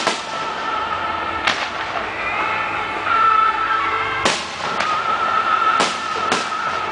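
Aerial firework shells bursting with about five sharp bangs, three of them in the second half. Steady music plays underneath.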